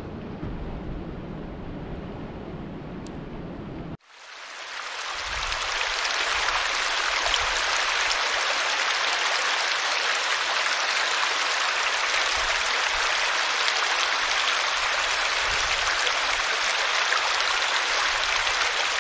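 Small woodland stream spilling over a mossy log into a pool: steady splashing, babbling water that fades in about four seconds in and holds steady. Before it, a low, steady rushing noise.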